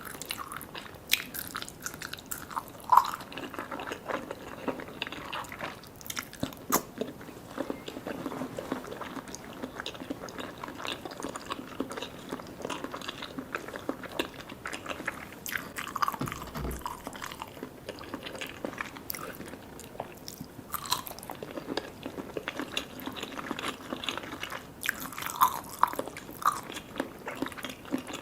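Close-miked chewing and biting of sticky Vietnamese jelly desserts and layered cake, with many wet mouth clicks and smacks throughout.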